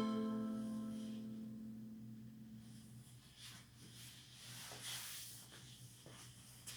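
The final held note of the music, pitched with its overtones, dies away over about three seconds, leaving a low steady hum and a few faint short rustles.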